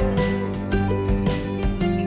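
Background music with strummed acoustic guitar and a steady beat.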